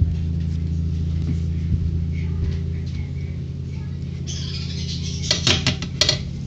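A steady low electrical hum. About four seconds in, a hiss starts, and a spatula clicks and scrapes against the pan several times.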